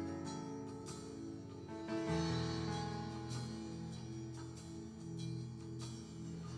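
Live church worship band playing instrumentally between sung lines: sustained keyboard chords with picked notes over them and a bass note change about two seconds in.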